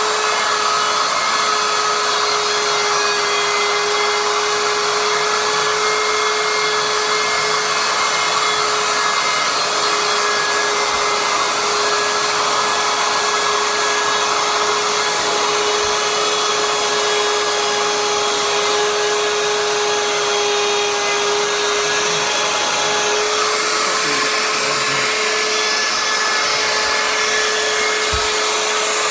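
Compact handheld router running at full speed as it cuts wood: a steady, loud motor whine with a constant tone and a hiss over it.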